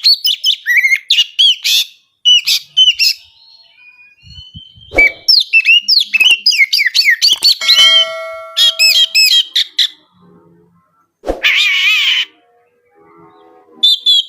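Oriental magpie-robin singing: runs of quick, varied whistled and chirping notes broken by short pauses, with a harsh buzzy note about eleven seconds in.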